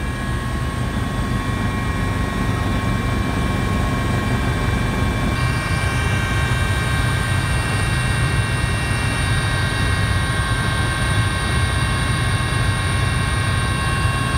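Cabin noise inside a Helibras HM-1 Pantera (AS565 Panther) twin-turbine helicopter in flight: the steady, deep beat of the rotor under a constant turbine whine made of several high, steady tones.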